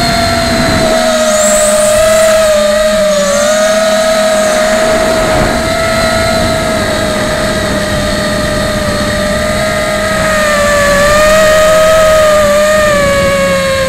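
Martian II racing quadcopter's motors and propellers whining steadily in flight, heard up close from on board. The pitch wavers slightly up and down throughout.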